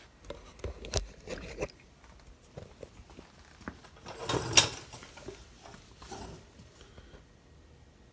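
Handling noises on a workbench: a sharp knock about a second in, scattered small clicks, and a louder burst of rustling and scraping around four and a half seconds in, with a smaller one near six seconds.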